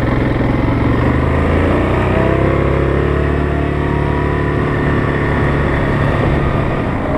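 ATV engine running under way, its pitch rising as it speeds up about two seconds in, then holding steady.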